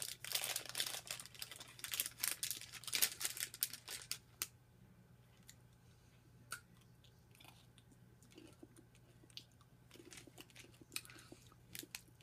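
A crinkly candy wrapper being torn and handled for the first few seconds, then quieter crunching and chewing of honey nut M&Ms with a few small clicks.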